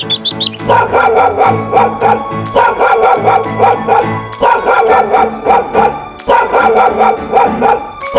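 Background music with a dog barking and yipping over it in repeated bursts.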